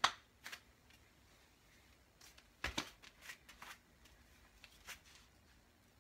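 Scattered soft taps and rustles of a barefoot person shifting on the floor and lifting a leg, with a duller thump about two and a half seconds in; quiet room tone between them.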